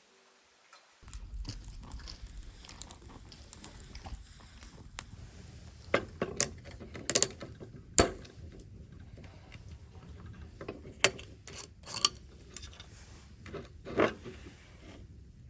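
Scattered clicks and knocks of things being handled, over a steady low rumble of outdoor background, starting about a second in. The sharpest knocks fall in the second half.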